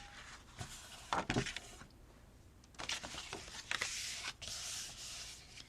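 Sheet of paper being handled and folded: a few light taps early, then soft rustling and sliding of paper from about three seconds in.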